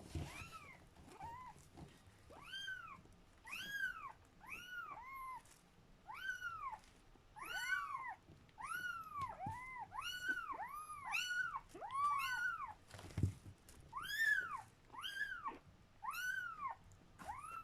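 A young kitten, about four weeks old, mewing over and over in thin, high calls that each rise and fall in pitch, about one or two a second. There is one soft low thump about three-quarters of the way through.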